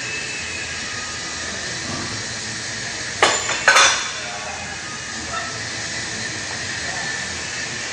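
Two sharp metallic clinks from a barbell loaded with 405 lb of plates, less than half a second apart about three seconds in, as the bar moves during a bench press. A steady hiss runs underneath.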